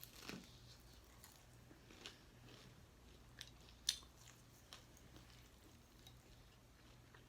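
Faint close-miked chewing and eating: a few soft crunches and clicks scattered irregularly, the clearest about four seconds in.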